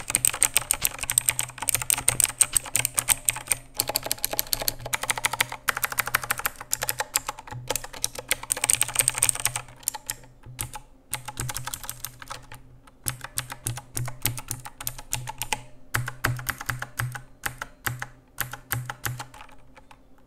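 Rampage KB-R77 mini mechanical keyboard with clicky Outemu Blue switches being typed on: a fast, dense run of sharp key clicks and clacks, thinning out with short pauses in the second half. No silencing O-rings are fitted yet, so each keystroke gives both the blue switch's click and the keycap bottoming out.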